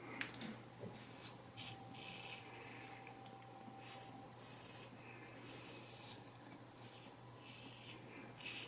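Single-blade razor scraping through lathered stubble: a series of about a dozen short, faint, scratchy strokes, some brief and some longer.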